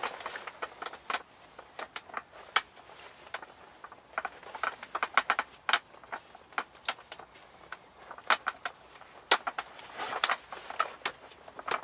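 Folding camp table being assembled: sharp clicks and light metallic rattles as the thin metal leg frame pieces are fitted and locked into place, coming irregularly and sometimes in quick little clusters.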